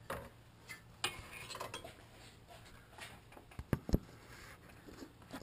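Faint scraping and light clicks of a screwdriver working the spring clips that hold a 2011 Ford Super Duty's grille, with two sharper clicks close together a little before the end.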